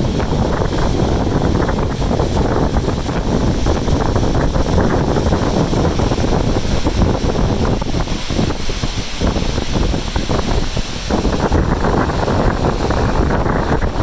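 Strong wind buffeting the microphone: a loud, fluttering rush of noise, heaviest in the low end, that eases briefly twice in the second half.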